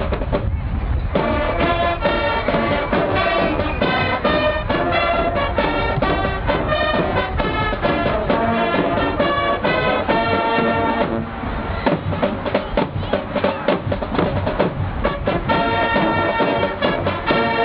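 High school marching band playing, with brass carrying the tune over marching drums. The drums play alone at first, and the brass comes in about a second in.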